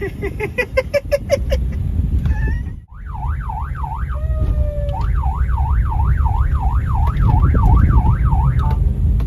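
Car-mounted electronic police-style siren: first a quick run of rising chirps, then, after a break, a fast up-and-down yelp wail at about two and a half sweeps a second. The car's engine and road noise run underneath.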